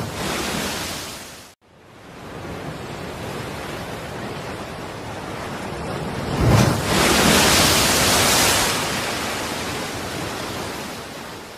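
Sea-water sound effect: a steady rushing of surf and water that cuts out suddenly about a second and a half in, comes back, then swells with a low rumble and a loud rushing hiss about six and a half seconds in before fading away.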